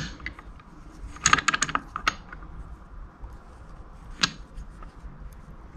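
Light metallic clicks and taps from handling a metal oil pump and balance shaft assembly: a quick run of clicks about a second in, then a single sharp click a few seconds later.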